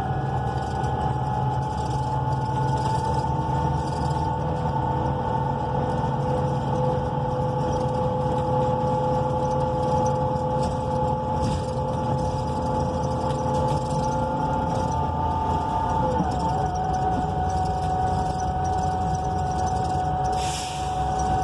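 Engine and drivetrain of a 2014 NABI 42 BRT bus, with a Cummins Westport L9N natural-gas engine and an Allison B400R automatic transmission, heard from inside the bus as it runs. There is a steady rumble with a whine whose pitch drifts slowly and then steps down about two-thirds of the way through. A brief hiss comes near the end.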